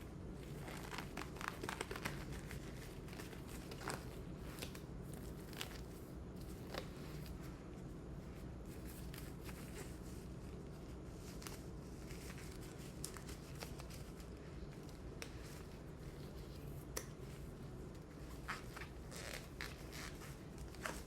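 Disposable exam gloves being handled and pulled on, with scattered crinkling and light rustling, over a steady low hum.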